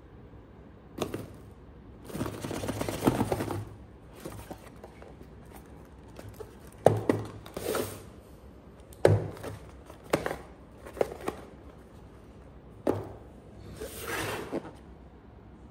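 Cardboard blind boxes and a paper card being handled on a wooden table: several spells of card rustling and sliding, with about six sharp knocks as boxes are set down or bumped.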